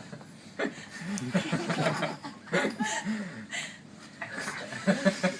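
People laughing and chuckling in short bursts, mixed with a few spoken words.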